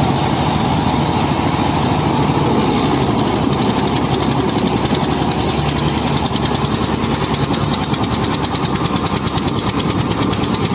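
Diesel engines of a Mahindra Arjun and an Eicher tractor running hard under load as the two pull against each other on a chain. A loud, steady drone that takes on a fast, even pulsing in the second half.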